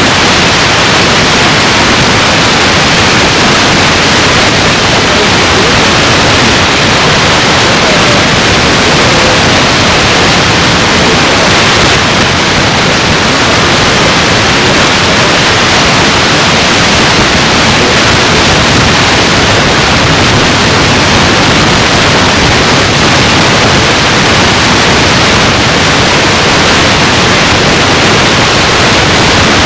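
Loud, steady static hiss with no change throughout, the noise of the recording itself with no speech on it.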